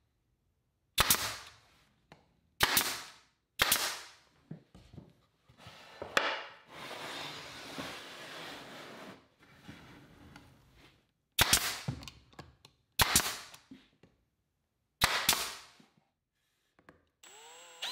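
Pneumatic brad nailer firing 1.5-inch nails to tack a glued poplar frame together: six sharp shots in two groups of three, with a pause of several seconds between the groups.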